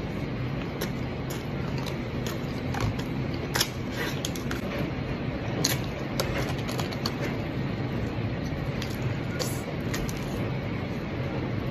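A person eating fried fast food: scattered small clicks, crunches and rustles of chewing and handling the food, over a steady low room hum.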